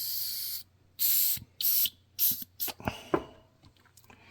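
Short hissing blasts of pressurised spray: one ends about half a second in, then three shorter blasts follow, then a few light taps.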